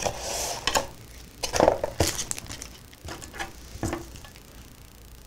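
A brief rustle, then scattered light clicks and taps from handling a small plastic feature phone and its removable battery.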